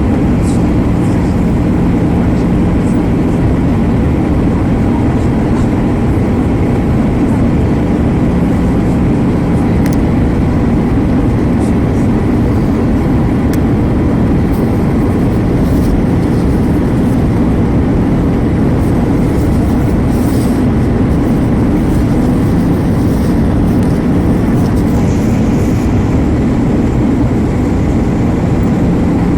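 Steady cabin noise inside an Airbus A320 airliner in flight: an even, deep rush of engine and airflow noise with a faint steady hum and a few light clicks.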